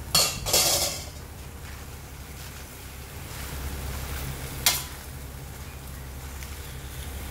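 Choy sum greens sizzling in a stainless steel wok while a metal ladle stirs them, with loud scraping clatters in the first second and a single sharp knock of the ladle against the wok about five seconds in. A steady low hum runs underneath.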